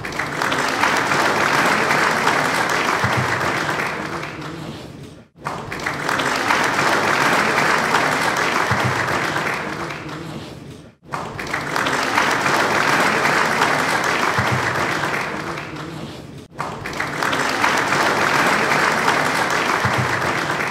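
Applause from a crowd clapping, the same stretch of about five and a half seconds played four times over. Each stretch swells and then fades, with a sharp break before the next one starts.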